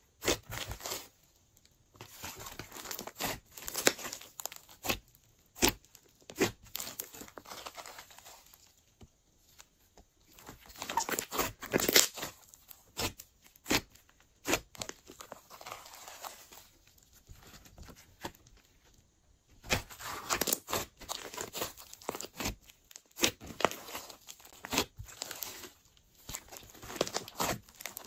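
Hands squeezing, pressing and stretching a large mass of glossy slime, making irregular sticky clicks, crackles and pops in clusters with short quiet pauses between.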